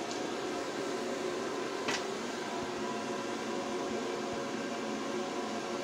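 Steady hum of a running fan heater, with faint steady tones and one light click about two seconds in.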